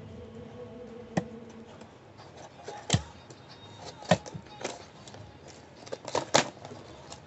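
Scissors cutting through a taped plastic courier mailer: a handful of sharp, separate snips and crackles of packaging, spaced unevenly a second or so apart.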